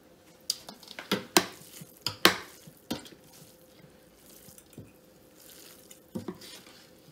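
Long metal spoon stirring moist cornbread dressing in a large stainless steel stockpot, knocking against the pot's side in a quick run of sharp clanks over the first three seconds, then twice more.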